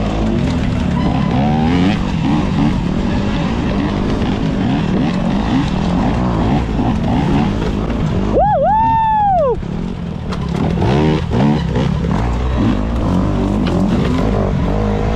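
72-volt Talaria Sting electric dirt bike under way: a heavy, steady low rumble with frequent knocks from the terrain, and the motor's whine rising and falling with the throttle. About eight seconds in the whine stands out clearly, swooping up, dipping and falling away.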